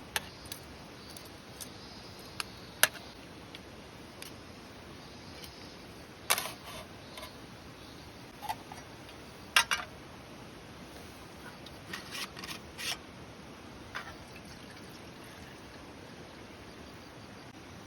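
Scattered short, sharp clicks and knocks of things being handled, a few seconds apart with a small cluster near the end, over a steady hiss of flowing stream water.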